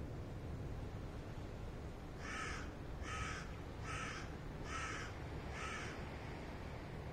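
A bird calling five times in an even series of short calls, a little under a second apart, starting about two seconds in.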